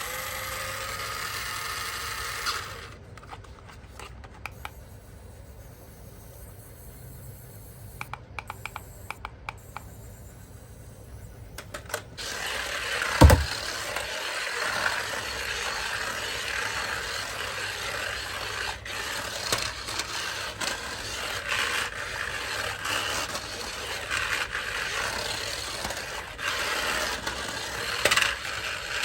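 Toys and packaging being handled: scraping and rubbing with scattered small clicks, and one sharp knock about 13 seconds in. After the knock the rubbing becomes denser and louder.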